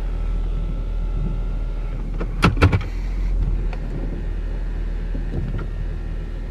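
Jeep engine idling, a steady low rumble heard from inside the cabin. A quick cluster of sharp knocks comes about two and a half seconds in.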